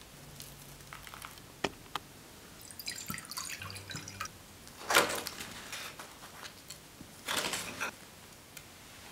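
Pink sparkling wine poured from a bottle into a coupe glass: a crackling fizz and pour, with a louder splash about five seconds in. A few light clicks come earlier, and a short crunchy burst near the end, as a spoon breaks into the crisp meringue shell.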